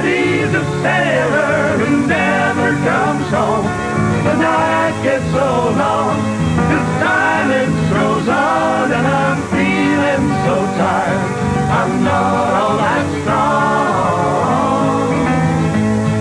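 Country-folk ballad played by a band, a melody line over steady guitar accompaniment.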